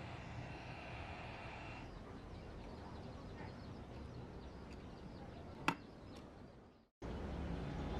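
Quiet handling of speaker wires over a low background hiss, with one sharp click near the end as a plastic speaker terminal plate is set down on a wooden table; then the sound fades away.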